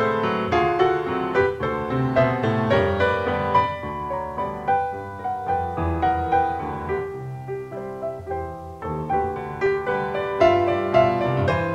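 Background piano music: a steady stream of single notes carrying a melody over lower accompanying notes.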